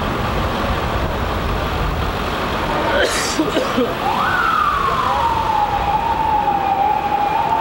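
Emergency vehicle siren wailing over steady street noise. It starts about halfway through with a quick rise, then slides slowly down and holds, and begins to climb again near the end. A short hiss comes just before it starts.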